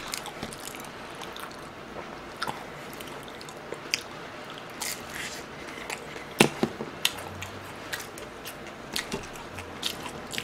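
Close-miked eating sounds of biting and chewing fried snacks: scattered sharp crunchy clicks and wet mouth sounds, loudest in a cluster about two-thirds of the way through.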